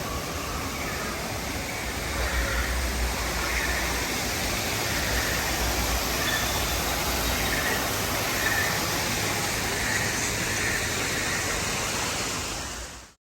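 Steady rushing noise with a low rumble that comes and goes, cutting off suddenly at the end.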